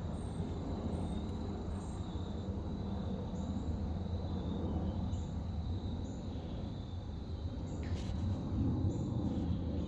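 Outdoor background: a steady low rumble with faint, short, high chirps repeating about once a second, and a single sharp click about eight seconds in.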